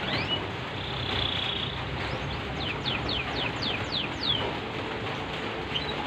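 Steady hiss of falling rain, with a canary chirping over it. There are a few rising chirps near the start and a short trill about a second in, then a quick run of about seven downward-sweeping notes.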